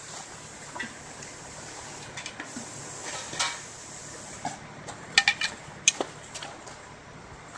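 Scattered metallic clinks and scrapes of hand tools working in stony soil, with a quick cluster of sharp clinks about five seconds in. Under them runs the steady low hum of a mini excavator's engine.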